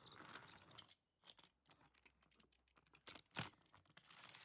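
Near silence with faint handling noise: small scattered clicks and rustles, and one sharper click about three and a half seconds in.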